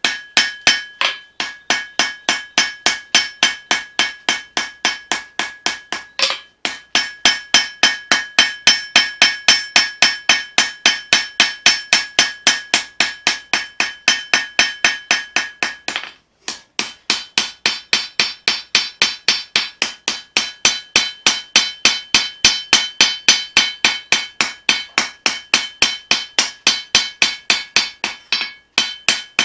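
Hammer blows on leaf-spring steel over an anvil while forging a knife blade, in a steady run of about three strikes a second, each with a metallic ring. There are brief pauses about six and sixteen seconds in.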